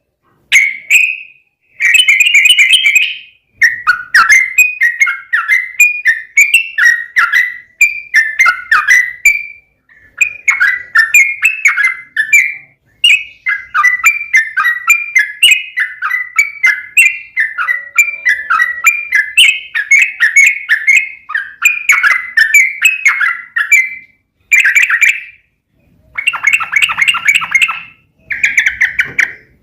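Yellow-vented bulbul (trucukan) singing long, rapid, bubbling warbled phrases in a continuous roll, one phrase after another with only brief pauses.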